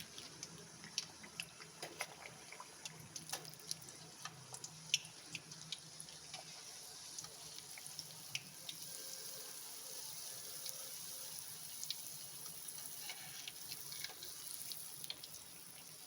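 A kajjaya (rice-flour and jaggery dough disc) frying in hot oil: a faint, steady sizzling hiss that grows stronger about halfway through, with scattered pops and crackles.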